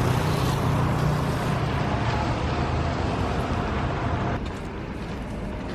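Steady rumble of passing road traffic, with a faint held whine in the middle. It drops away about four seconds in.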